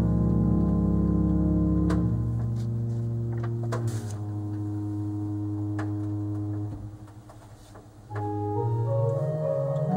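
Pipe organ, the Sauer/Rieger organ sounding stops from its 1877 Sauer instrument, playing sustained chords over low pedal notes. The pedal drops out about two seconds in, the chords thin and die away into a brief reverberant lull near seven seconds, and new, higher chords enter about eight seconds in, with a few faint clicks.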